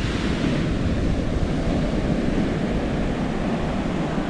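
Ocean surf breaking and washing up a sandy beach in a steady wash of noise, with wind on the microphone.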